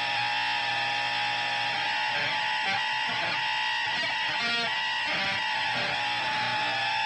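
Noisy rock recording: distorted electric guitar holding long, steady ringing tones over a dense wash of sound, with no vocals.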